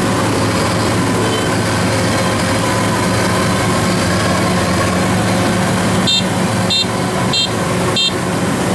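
Engine of a tracked rice combine harvester running steadily. Near the end come four short, high electronic beeps about 0.6 s apart.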